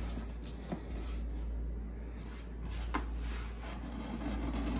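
Cardboard rubbing and shifting as a large inner box is eased out of a cardboard shipping carton, with a couple of faint taps, over a steady low hum.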